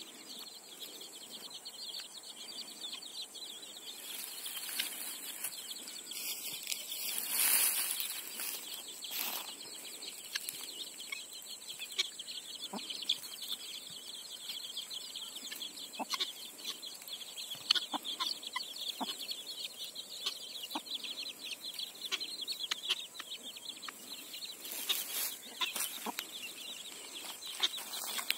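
Country hen clucking while her brood of young chicks peeps steadily and high, with scattered short calls and ticks. A brief rustling noise stands out about seven seconds in.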